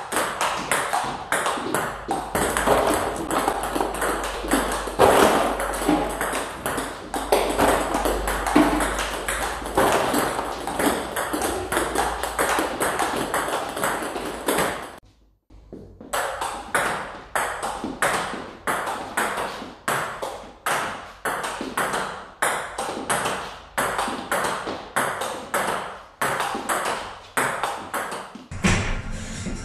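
Table tennis ball struck by a paddle and bouncing on the table in a fast, continuous drill: a steady run of sharp clicks, several a second, with a short break about halfway.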